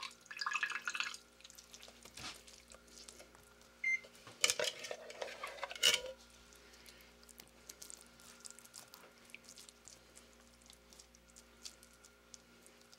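A spoon scraping and knocking against a tin can as crushed pineapple is spooned out onto a pizza. There is a clatter at the start and a longer stretch of scraping about four to six seconds in, then small soft clicks and pats as the fruit is spread by hand, over a faint steady hum.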